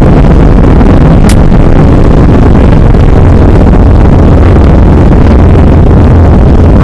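Airbus A319 on its takeoff roll heard from inside the cabin over the wing: a loud, steady jet-engine and runway rumble, heavily distorted by an overloaded microphone. A single sharp click about a second in.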